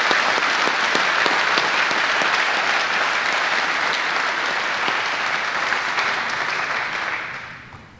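Audience applauding, a dense spatter of claps that fades away near the end.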